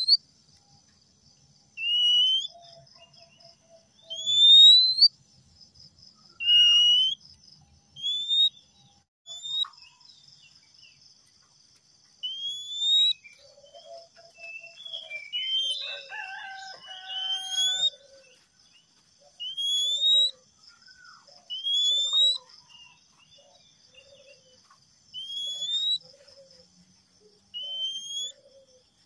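Male Oriental magpie-robin singing: a series of loud rising whistles, about one every two seconds, with a burst of more varied, lower chattering notes about halfway through. A steady high buzzing runs underneath.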